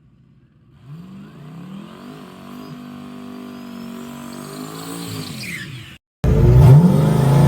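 Turbocharged 5.3 LS V8 in a Fox-body drag car making a pass: the engine note climbs about a second in, holds, then drops away. After a brief dropout about six seconds in, the engine comes back much louder and rises in pitch again.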